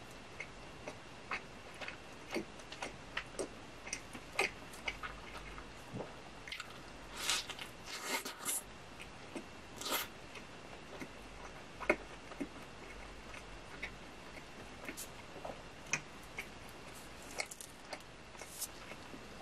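Close-miked chewing and biting of a McDonald's burger: many small wet, sticky mouth clicks, with a few longer, louder bites through the soft bun in the middle.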